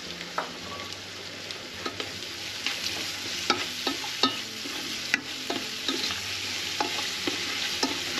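Chopped peppers frying in an onion and garlic sofrito with a steady sizzle, while a spoon stirs them around a metal pot, scraping and tapping against it several times a second.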